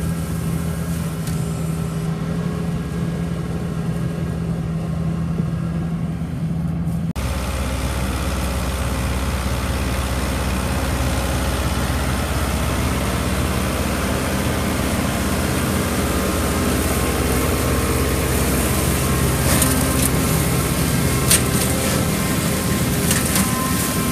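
John Deere tractor running under load, driving an Amazone GHD 1800 Smart Cut flail mower-collector as it cuts and picks up grass; a steady mechanical running. The sound changes abruptly about seven seconds in to a deeper running, and a few sharp ticks come near the end.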